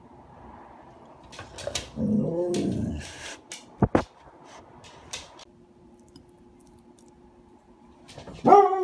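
Husky vocalizing: a drawn-out whining call about two seconds in, two sharp clicks around four seconds, then a louder whine near the end that falls in pitch.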